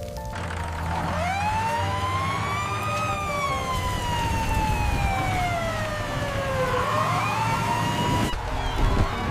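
Emergency vehicle siren wailing in a slow rise and fall: up for about two seconds, down over about four, then rising again near the end, over a low rumble.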